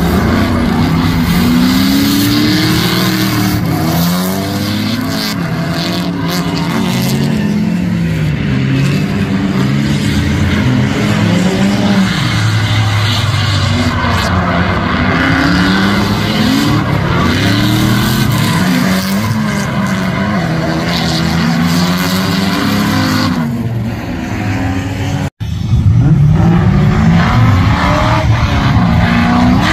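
Drift cars' engines revving hard, their pitch rising and falling again and again as the cars slide, with tyre squeal. After a short break about 25 seconds in, another car's engine revs up louder.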